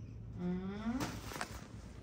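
A short wordless human vocal sound, rising in pitch, followed by two light clicks.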